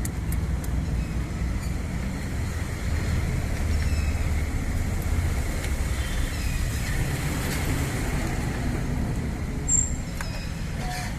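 Car running with a steady low rumble of road and engine noise, with a short high chirp about ten seconds in.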